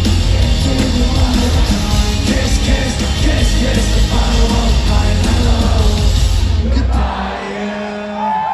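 Loud live rock-band music with singing and yelling from the crowd, the closing bars of the song; about seven seconds in the heavy bass and drums drop out and the level falls, leaving a held note and scattered yells.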